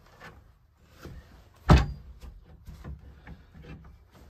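A wooden door being handled: one loud thump against the wood about two seconds in, with lighter knocks and clicks around it.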